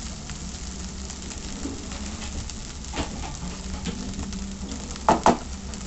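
Fried rice sizzling faintly in a hot pan while a spatula scrapes and pushes it aside, with a knock about three seconds in and two sharp metal knocks close together near the end.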